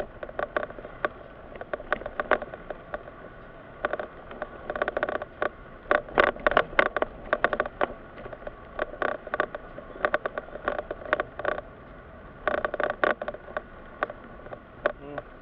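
Irregular clusters of rattling, scraping clicks inside a moving car's cabin, over a faint low road hum.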